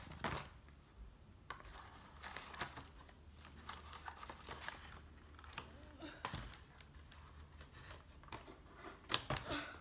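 Toy packaging being handled and opened: scattered soft crinkles and small clicks of plastic and cardboard, with a sharper cluster of clicks near the end.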